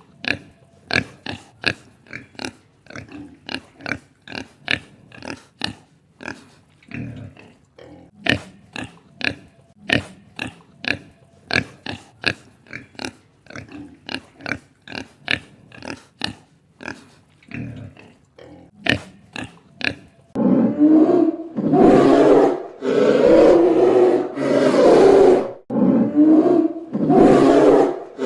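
Animal calls: a long series of short, sharp calls at about two a second, then from about twenty seconds in longer, louder calls.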